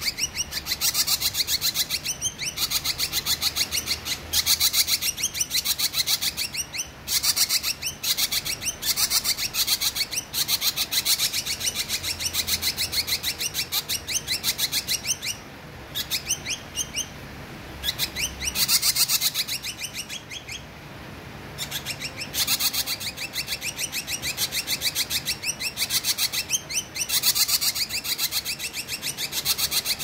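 Ashy drongo (srigunting kelabu) singing steadily in long runs of rapid, high chirping notes, with a short break about two-thirds of the way in.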